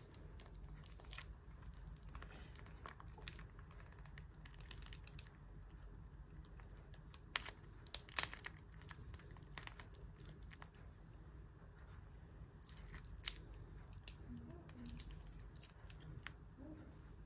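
Knife blade slicing and scraping through wax honeycomb: faint crackling and tearing of the comb, with a few sharper snaps around the middle, over a low steady hum.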